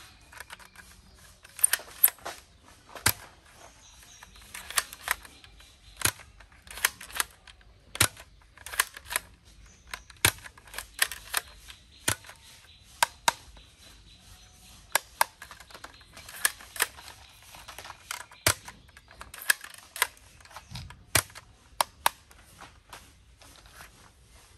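Plastic toy blaster clicking as it is handled and its mechanism is worked: many sharp, irregular clicks, some in quick pairs.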